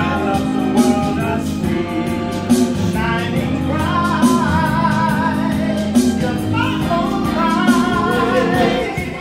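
A man sings live into a handheld microphone, with wavering, held notes, over a recorded backing track with a steady beat. Both are amplified through a portable party speaker.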